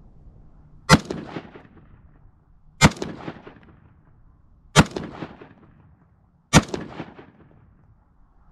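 Springfield Saint AR-15 rifle firing .223 full metal jacket rounds: four single shots about two seconds apart, each trailing off in a short echo.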